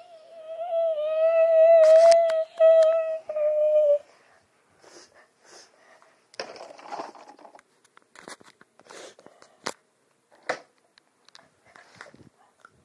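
A child humming one long, slightly wavering note, broken twice near the end, for about four seconds. After it, scattered clicks and rustling as the camera is handled.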